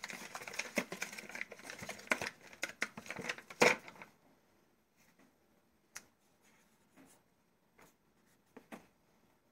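Crinkling and rustling of plastic packaging, dense for about four seconds and ending in one sharp crackle, then a few faint taps.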